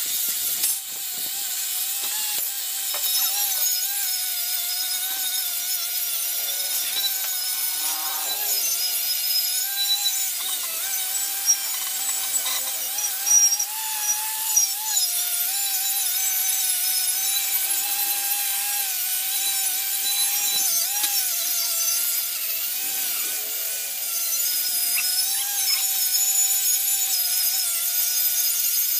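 Makita angle grinder running with an abrasive wheel pressed against a rusty steel air-compressor tank, scouring off rust and paint. A steady motor whine wavers slightly in pitch as the pressure on the wheel changes, with a few brief louder scrapes around the middle.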